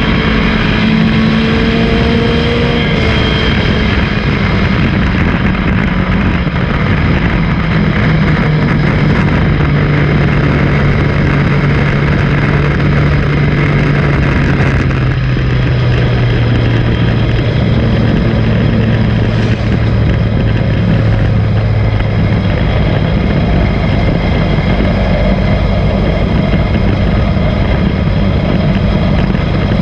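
Race car's engine heard from a camera mounted on the car, loud over a heavy rumble. Its pitch steps down and then falls gradually over about twenty seconds as the car slows, before settling at a steady lower speed near the end.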